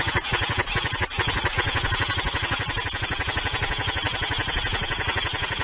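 Airsoft electric gun firing long full-auto bursts: a fast, steady mechanical rattle of rapid shots, with a brief break about a second in.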